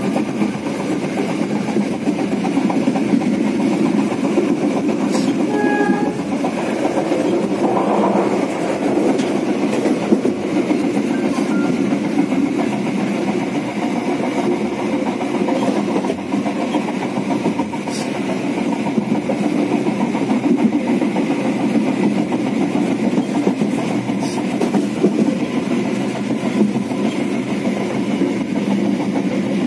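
Steady running noise of the Walahar Express passenger train at speed, heard from inside a coach: wheels rolling on the rails, with a few sharp ticks.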